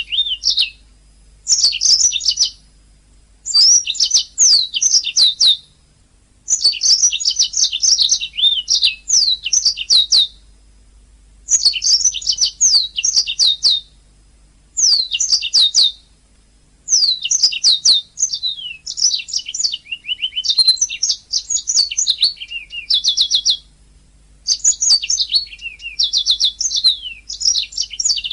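Domestic canary singing: phrases of one to three seconds of rapid chirps and fast trills, high in pitch, broken by short pauses, with some lower rolling trills near the middle.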